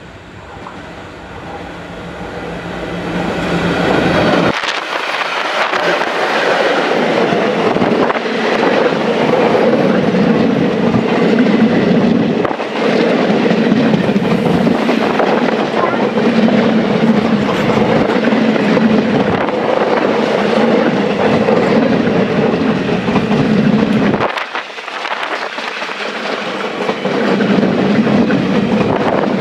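Indian Railways express train approaching and passing at speed. The sound builds over the first four seconds, then the wheels clatter steadily over the rail joints as the coaches go by, easing briefly near the end before picking up again.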